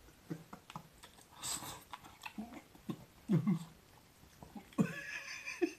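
A man's wordless laughing vocal sounds while eating: short low grunting chuckles, a breathy burst about a second and a half in, and a louder, higher-pitched squeal near the end.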